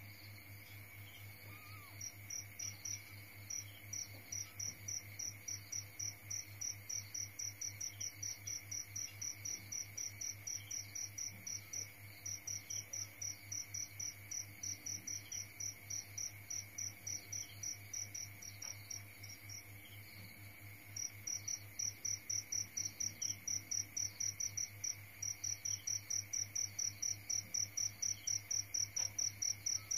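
A cricket chirping in an even, rapid run of high-pitched chirps, several a second. It breaks off for a couple of seconds about two-thirds of the way through, then resumes louder, over a faint low steady hum.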